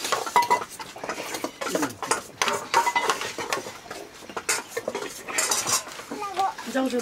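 Spoons scraping and clinking against stainless steel plates while people eat, with many short clicks and a few clinks that ring briefly.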